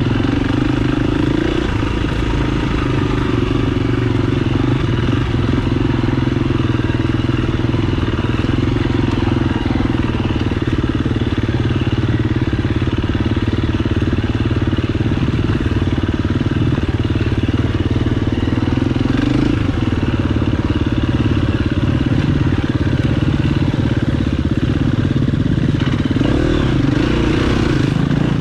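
Dirt bike engine running steadily under way on a trail ride, the pitch wavering up and down near the end as the throttle changes.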